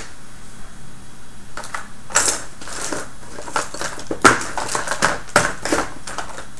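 A hand rummaging through Robotis OLLO robot-kit parts, with irregular clicking and rattling that begins after a second or so and is loudest about four seconds in.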